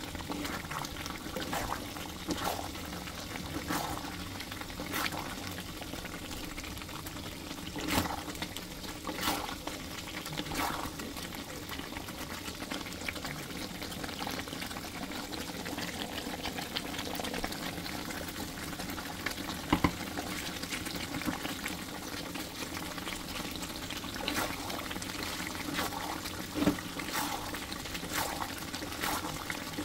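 Chicken in a creamy malai gravy simmering in a pan: a steady bubbling with irregular sharp pops.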